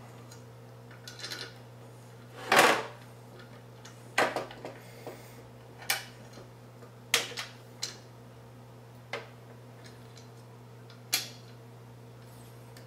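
Small metal screws clicking and clattering against the steel top panel of a PC case and the radiator as they are fitted to mount a liquid-cooling radiator: about eight separate sharp clicks at uneven intervals, the loudest about two and a half seconds in, over a low steady hum.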